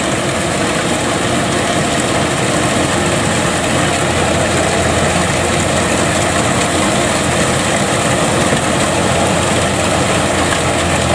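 Kubota DC-105X rice combine harvester running steadily under load as it cuts and threshes rice, its diesel engine and machinery making a loud, even din with no let-up.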